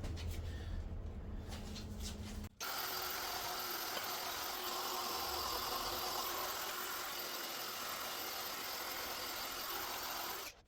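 A handheld power tool running steadily for about eight seconds, starting and stopping abruptly, during cleanup of a scored vise lead screw and its bore. Before it, a low rumble with a few light clicks of metal handling.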